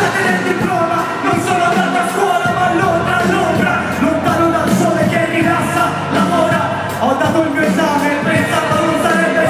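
Live hip-hop performance: a rapper's vocal over a loud backing track through a concert PA, recorded from among the audience.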